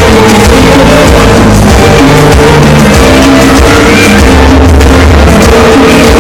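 Loud recorded dance music played by a DJ through a mobile disco sound system, with a steady bass line and continuous beat.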